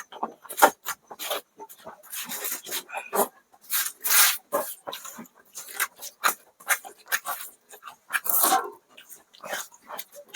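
Close-miked eating of rice, dal and fried eggs: irregular wet chewing and mouth noises with a few longer, breathy, slurping stretches.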